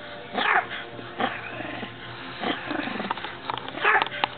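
Small Yorkie-type terrier barking: four sharp barks about a second apart, the last the loudest.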